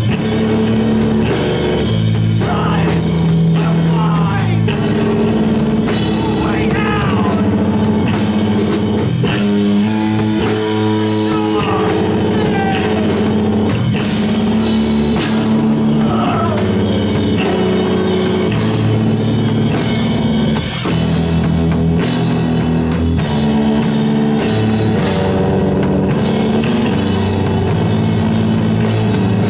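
A small rock band playing live and loud: electric bass guitar and drum kit.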